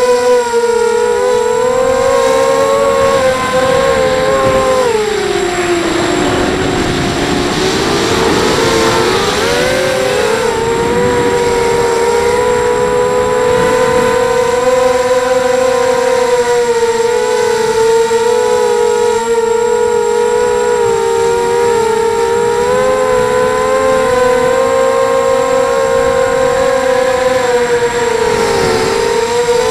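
Brushless motors and propellers of a 250-size mini quadcopter, heard through its onboard camera: a steady, loud, high motor whine. About five seconds in the pitch drops as the throttle is eased and rushing air noise comes up. About ten seconds in it rises back and holds, wavering slightly with throttle corrections.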